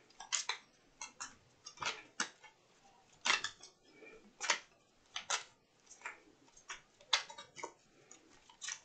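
Oracle cards being shuffled and handled by hand: light, irregular clicks and snaps of card stock, a few each second, some sharper than others.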